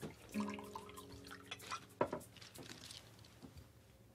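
Quiet kitchen sounds of a drink being poured into a glass: trickling liquid and a few glass clinks, the sharpest about two seconds in. A steady low hum sounds for just over a second near the start.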